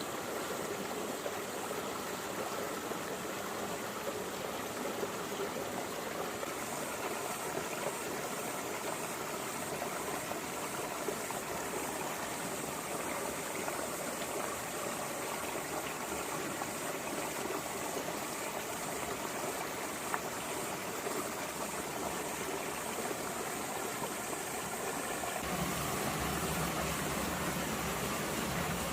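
Small mountain stream running over rocks, a steady babble of water. About twenty-five seconds in, a low steady rumble suddenly joins the water sound.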